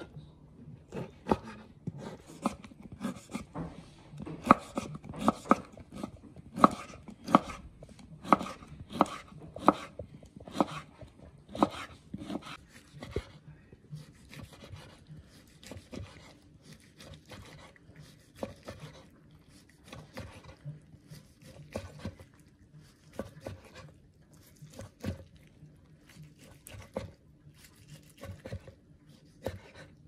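Kitchen knife cutting cooked meat on a wooden cutting board, the blade knocking on the board with each cut. The cuts come about one and a half a second, sharp and regular for the first dozen or so seconds, then softer and less regular.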